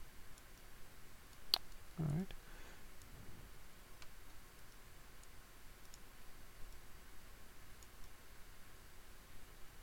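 Faint, sparse computer mouse clicks, with one sharper click about one and a half seconds in, followed by a brief low sound just after two seconds.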